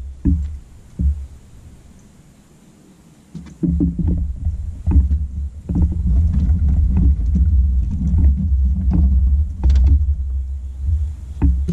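Low buffeting rumble of wind on the microphone, setting in about three and a half seconds in, with scattered knocks and clunks from a man moving about the boat and handling the rods.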